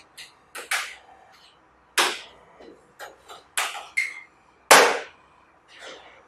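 Metal latch clasps and lid of an aluminium carrying case being snapped shut by hand: a string of sharp clicks and clacks, the loudest about three-quarters of the way through.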